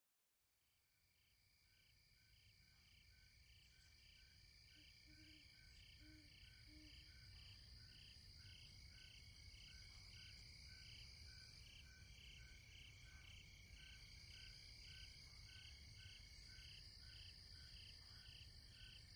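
Faint chorus of insects and frogs fading in: a steady high trill with regular chirps about twice a second, and a few short low calls around five to seven seconds in.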